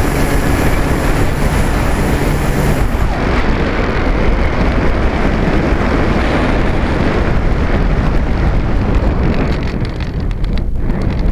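Air rushing over the microphone of a camera on a Diamond 1800 model aircraft in flight. A steady motor hum and whine runs at first and stops about three seconds in, leaving only the wind.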